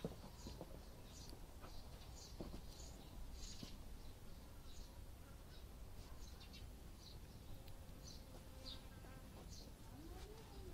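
Faint insects chirping in the grass: short high-pitched blips repeating irregularly, about two a second, over a low steady rumble.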